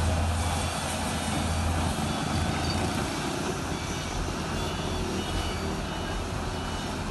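Heavy diesel engines of mobile cranes and excavators running, with a deep drone that eases off about two seconds in. A reversing alarm beeps faintly in the second half.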